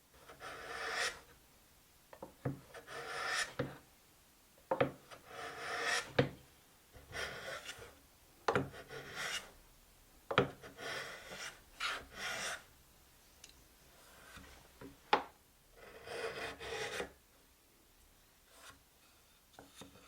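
Hand tool rasping wood in a series of rough strokes about a second long, with a few sharp knocks between them; the strokes stop a few seconds before the end.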